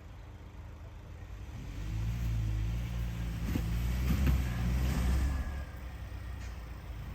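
Car engine running and picking up revs about two seconds in, with a couple of short knocks near the middle.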